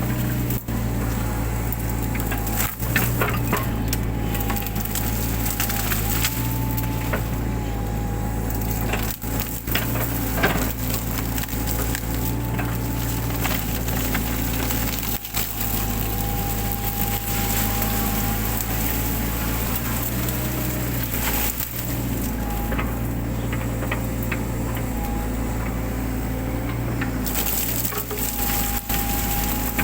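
Mini excavator's diesel engine running steadily with a wavering whine, while it crushes and tears out brush and woody undergrowth with frequent sharp cracks and snaps.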